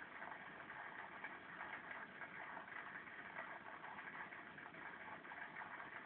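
A steady hum and hiss, like a small motor running, with no separate events.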